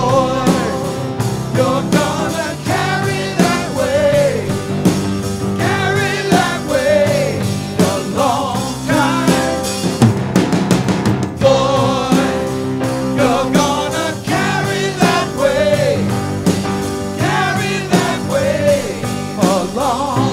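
Live rock band playing: male voices singing over drum kit and electric guitar.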